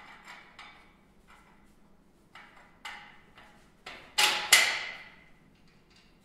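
Metal parts knocking and clanking during work on a chassis and suspension: a few light knocks, then two loud sharp clanks about four seconds in, the second ringing on briefly.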